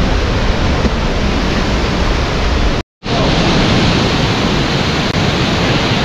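Steady rushing roar of the Pailón del Diablo waterfall, loud and continuous, broken by a moment of total silence just before halfway, after which it resumes.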